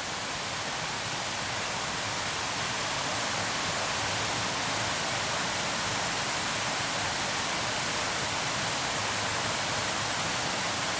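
Waterfall on a mountain stream: a steady rush of falling water. It grows slightly louder over the first few seconds, then holds even.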